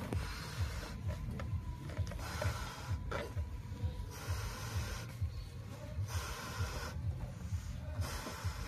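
A latex balloon being blown up by mouth: repeated puffs of breath rushing into it, one every second or two, with short pauses between for the next breath. A low irregular thudding runs underneath.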